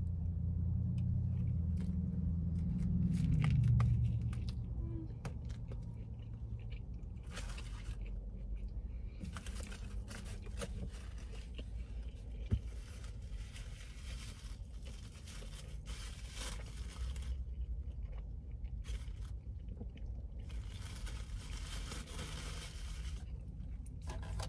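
A crispy fried chicken sandwich being bitten and chewed close to the microphone, with crunching in scattered bursts. A low rumble fills the first few seconds.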